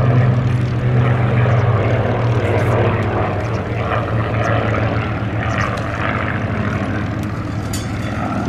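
Two Hawker biplanes, a Fury Mk I and a Nimrod Mk II, flying past together, their Rolls-Royce Kestrel V12 piston engines and propellers running with a steady drone. The sound grows slightly fainter in the second half.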